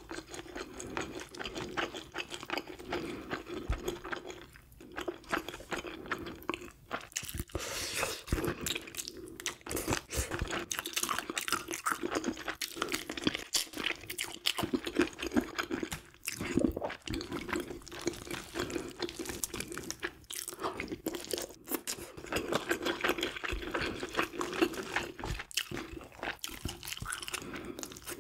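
Close-miked chewing and crunching of grilled sea bream, with irregular crackles and clicks as the fish is picked apart by hand and chopsticks.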